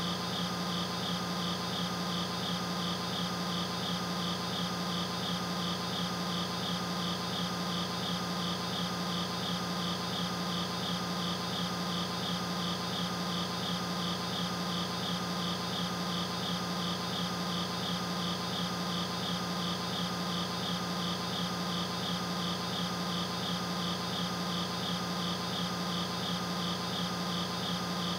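A steady, unchanging drone of several held tones, a low hum with higher tones above it, the highest of them fluttering rapidly.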